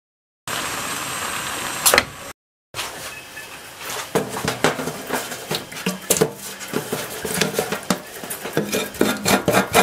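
Knife blade scraping scales off a raw whole flounder: quick repeated scraping strokes that come faster near the end. Before it, a short intro sound effect, a steady rush ending in a sharp hit, then a moment of silence.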